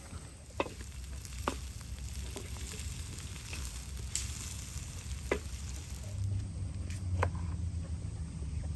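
Food sizzling as it fries in a pan over a campfire, a steady hiss broken by a few sharp clicks.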